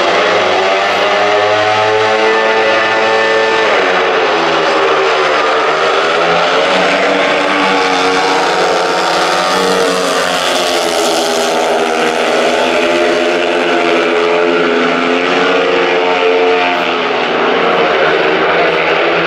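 Three speedway bikes' 500 cc single-cylinder methanol engines racing round the track, their pitch rising and falling as they go through the bends and straights. They are loudest as they pass close by, about ten seconds in.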